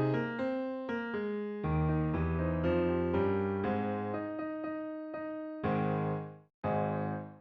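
Background music on electric piano: a melody of struck notes that fade after each attack, with a brief break about six and a half seconds in.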